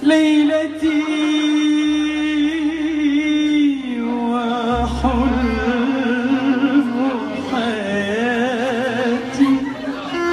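A woman singing into a microphone. She holds one long high note for almost four seconds, then drops to a lower, ornamented line with wide vibrato, over low sustained accompaniment notes.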